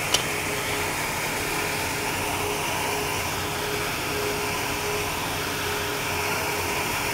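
Steady ventilation and machinery noise of a ship's engineering space, an even hum with a faint steady tone in it. A single sharp click comes just after the start.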